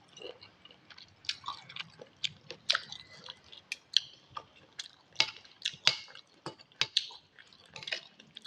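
A person chewing a mouthful of instant noodles in broth close to the microphone: irregular wet smacks and clicks of the mouth, several a second.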